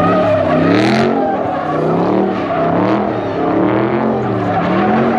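Dodge Charger's engine revved hard and rising and falling about once a second while spinning donuts, over the hiss and squeal of its rear tyres spinning on the pavement.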